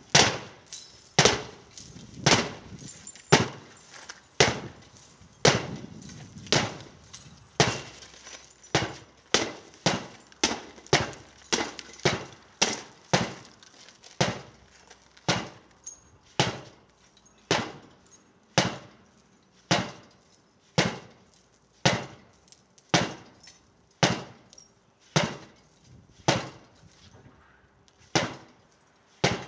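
Sledgehammers striking laminated security-glass panes blow after blow, a sharp crack of splintering glass with each hit, about one to two blows a second. The first few blows carry the most crashing. The P5A pane gets holed through while the P6B pane cracks but holds.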